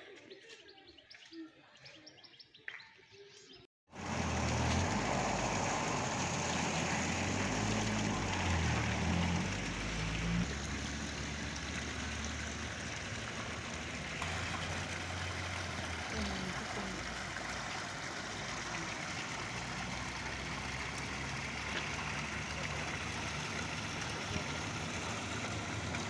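Faint bird chirps for the first few seconds. After a cut about four seconds in comes steady street noise, with a motor vehicle's engine running low underneath.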